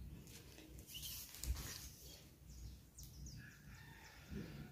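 Faint handling sounds of a fabric tape measure being stretched out over a crochet runner, small soft rustles and a light knock about a second and a half in, with faint bird chirps in the background.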